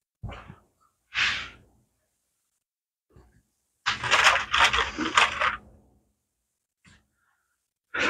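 Small hard parts clinking and rattling as they are rummaged through by hand. Two short scrapes come in the first second and a half, then about two seconds of rattling and clicking about four seconds in.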